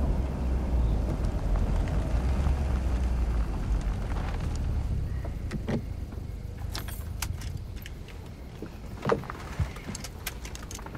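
Car road and engine rumble heard inside the cabin as the car slows and pulls over, the deep rumble dying away after about three seconds. Then scattered light clicks and knocks inside the stopped car, the loudest about nine seconds in.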